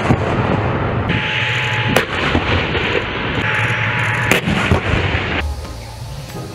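Toy battle tank's electronic battle sound effects: cannon fire and explosions, a noisy rumble with several sharp bangs, cutting off about five seconds in.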